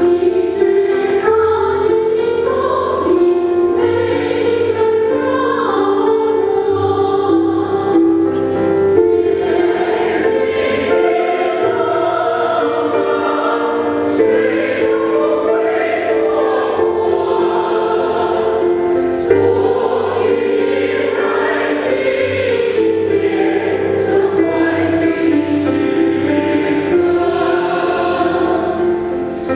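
Mixed choir of men and women singing in harmony, holding long notes that change every second or two.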